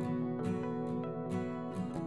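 Instrumental background music with plucked guitar notes.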